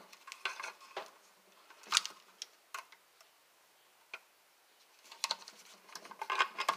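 Ideal Kinetic Reflex T-strippers clicking as they are worked on the end of a 14-gauge electrical cable. There are scattered sharp clicks, the loudest about two seconds in, a quiet spell in the middle and a quicker run of clicks near the end.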